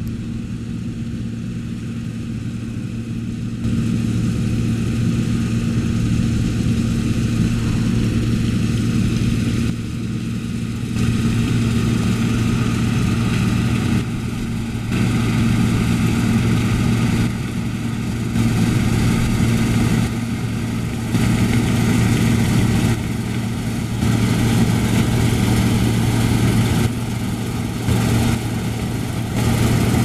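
John Deere 9860 STS combine's six-cylinder diesel engine running steadily under load while harvesting soybeans, a constant low hum. It gets louder about four seconds in and then swells and dips every few seconds.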